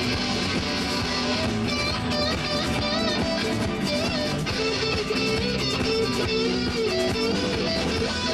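Instrumental stretch of a rock song: strummed guitars with bass and a lead melody that wavers in pitch.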